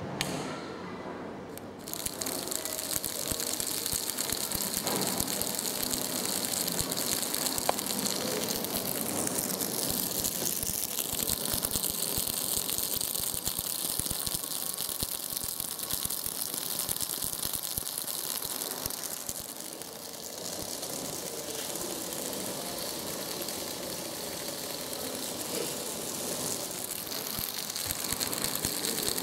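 A small electric motor spinning plastic pulley discs that drive a long rubber belt: a steady, dense rattling, hissing run of the belt over the pulleys, which steps up about two seconds in.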